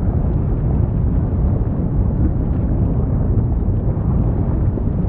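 Lava sound effect: a steady deep rumble with faint scattered crackles.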